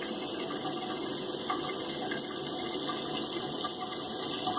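Bathroom sink faucet running steadily, an even rush of flowing water.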